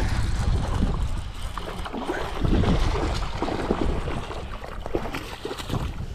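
Wind rumbling on the microphone with irregular handling knocks while a hooked bass is reeled to the boat, and water splashing as the fish thrashes at the surface.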